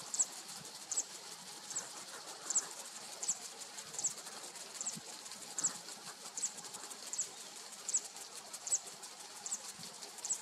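High, thin chirps repeated steadily, about one every 0.8 seconds, from an unseen small animal, over a faint outdoor background hiss.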